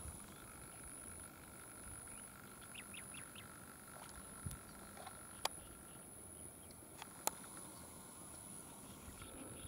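Faint outdoor ambience with a quick run of four short bird calls about three seconds in, over a steady high thin whine. Two sharp clicks, about five and a half and seven seconds in, are the loudest sounds.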